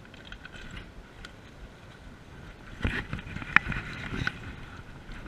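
Moving water splashing and sloshing, growing busier about three seconds in, with several irregular knocks and one sharp click.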